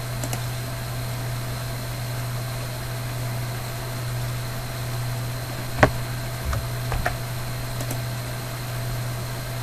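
Steady low hum and hiss of background recording noise, with a few short sharp clicks about six and seven seconds in.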